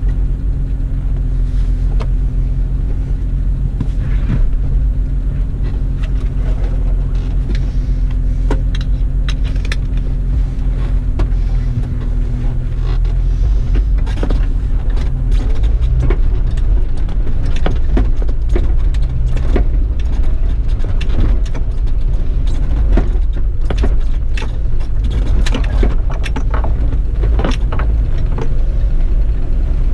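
Off-road 4x4's engine running at low speed on a rough dirt trail, heard from inside the cab, with knocks and rattles from the body and suspension over ruts and rocks. The knocks come thicker in the second half as the trail gets rockier.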